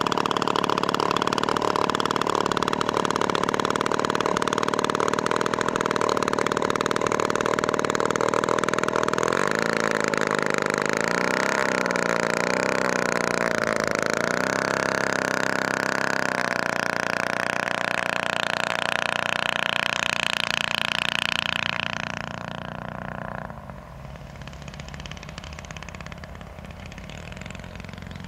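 Giant-scale model Spitfire's 3W-55 single-cylinder two-stroke petrol engine running steadily, its pitch wavering up and down with throttle changes as the model taxis. About three-quarters of the way through it drops to a quieter, lower note.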